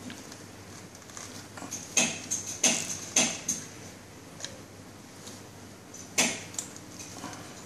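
Sharp plastic clicks and clacks from a handheld cable tool marked CC-10 as its halves are pressed shut around a cable and its handles are gripped: a quick run of about four clicks from about two seconds in, and one more loud click about six seconds in.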